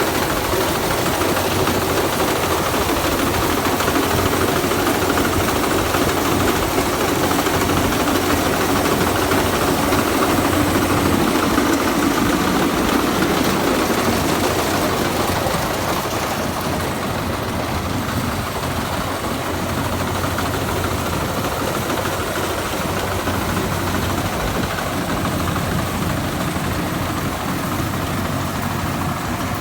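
Rice combine harvester running steadily while harvesting: a continuous diesel engine drone mixed with the noise of its machinery, easing a little about halfway through.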